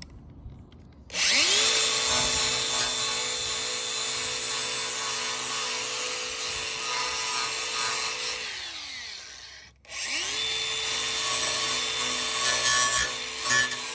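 Handheld cutoff saw cutting a plastic bumper trim panel. Its motor spins up about a second in and runs with a steady whine. It winds down and stops a little past the middle, then starts again and cuts until near the end.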